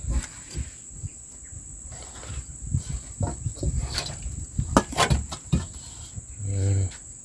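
Steady high-pitched drone of insects, with scattered light clicks and knocks from handling kitchen things, and a short hummed voice near the end.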